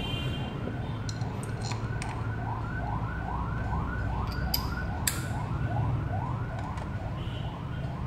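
An emergency-vehicle siren in a rapid yelp, a rising whoop repeating about three times a second, over a steady low rumble like traffic. A few sharp clicks sound, the loudest about five seconds in.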